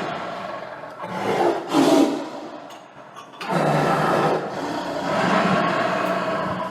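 Tiger roaring in a series of calls: one fades out in the first second, a short call comes about two seconds in, then a long low roar starts about three and a half seconds in and runs on.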